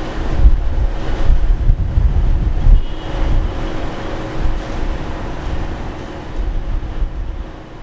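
Wind buffeting the microphone over the distant running of an elevated New York City subway train on its steel viaduct. The sound fades near the end.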